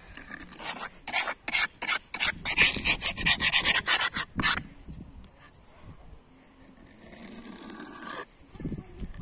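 Blue plastic sand mould scraped over sand on a plastic play table. A fast run of scraping strokes lasts about four seconds, then it goes quieter, with one more scrape near the end.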